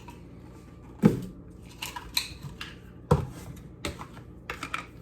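Kitchen utensils and containers clinking and knocking while baking soda is measured out with spoons: two sharp knocks, about a second in and about three seconds in, with lighter clicks and clinks between them.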